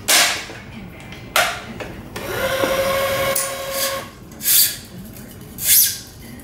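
Gosen R4X badminton string zipping through the racket's main strings four times as a cross is woven and pulled through. About two seconds in, the Wise 2086 electronic tensioner's motor whines, rising in pitch and then holding steady for about a second and a half while it pulls the string to tension.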